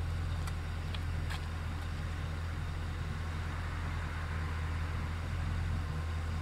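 Car engine idling steadily, with a few light footsteps on wet pavement in the first second and a half.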